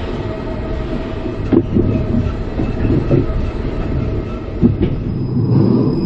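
Intamin roller coaster trains rolling along steel track: a steady rumble from the wheels with two sharp clunks, one about a second and a half in and one near the end.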